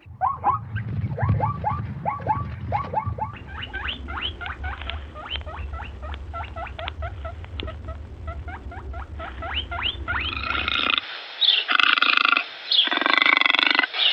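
Animal squeaking in a rapid series of short, high squeaks, several a second, over a low rumble. About ten seconds in, the squeaks give way to louder, harsher calls in bursts.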